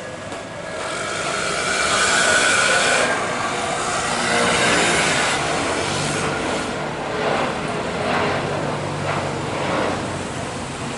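Twin jet engines of an Airbus A330 airliner at take-off thrust as it climbs away. The steady noise grows louder about a second in, then holds, easing slightly near the end.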